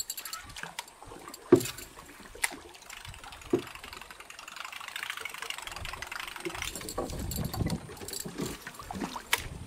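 Topwater lure being jerked across the water, making three sharp splashing pops about a second apart, with the faint clicking of a baitcasting reel being wound. A low rumble comes in near the end.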